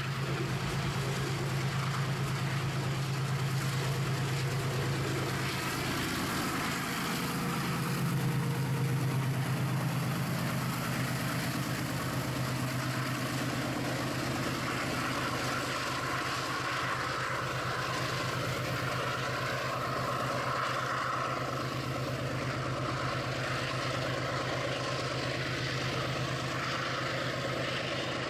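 Diesel-electric freight locomotive running under way, a steady low engine drone with the rumble of the train on the rails. The low drone weakens about ten seconds in, leaving a broader, even rumble.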